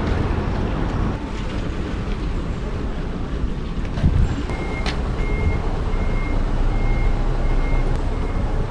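Vehicle reversing alarm beeping at one steady high pitch, about one and a half beeps a second, starting about halfway through, over a steady low rumble of engine noise and wind.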